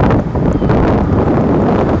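Wind buffeting the microphone, a loud, steady rumbling rush.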